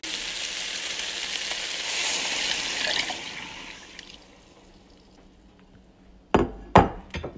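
Chunks of eggplant, onion and pepper sizzling in hot oil in a frying pan, the sizzle dying away about three or four seconds in as tomato-paste water is poured over them. A few sharp knocks near the end.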